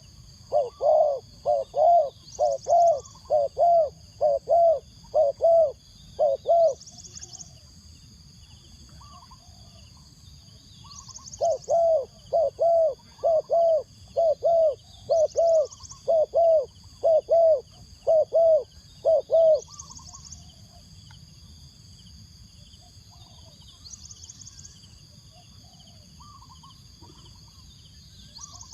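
Spotted dove, a decoy bird, cooing in two runs of repeated, evenly spaced notes: about nine in the first few seconds, a pause, then about a dozen more. A steady high-pitched insect drone swells every few seconds throughout.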